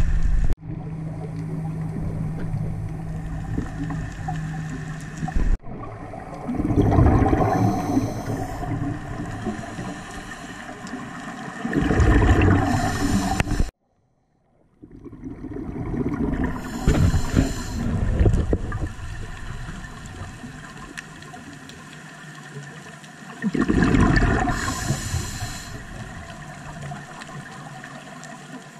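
A scuba diver's exhaled regulator bubbles rushing past an underwater camera, in four bursts about five seconds apart, with the breathing. A low steady hum runs through the first five seconds, and the sound cuts out for about a second in the middle.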